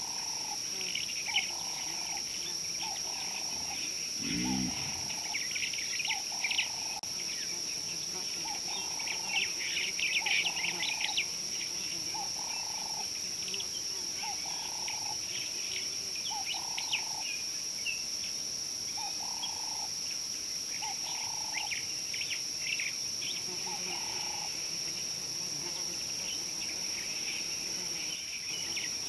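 Bush ambience: a steady high insect drone under scattered bird chirps, with a short call repeating about once a second. A brief low sound comes about four seconds in.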